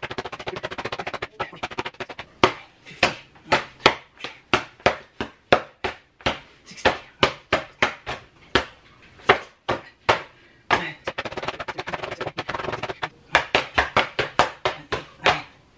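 Repeated slaps of a hand on a torn paper drawing. There is a fast flurry at first, then single sharp slaps about two a second, and a quicker run near the end.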